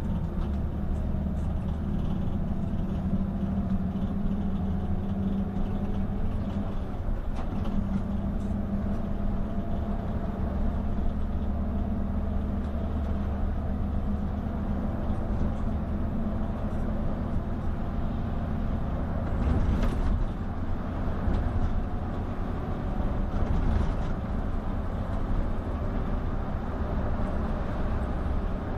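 Hino RG coach's engine and road noise heard from inside the cabin: a steady low drone while cruising, briefly swelling louder twice in the second half.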